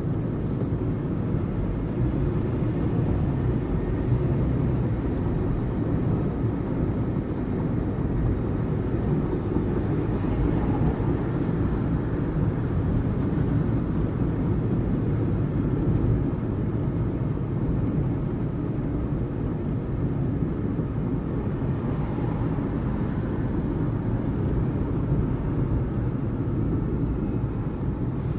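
Car driving at freeway speed: a steady low rumble of tyre and wind noise.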